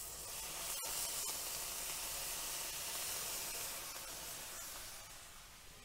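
Balsamic vinegar hitting a hot pan of browned green asparagus, hissing and sizzling as it boils off into steam. The hiss starts suddenly and fades over the last second or so.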